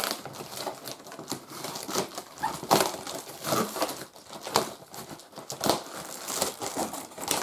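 Packaging being pulled and torn open by hand: irregular crinkling and tearing with scattered sharp crackles.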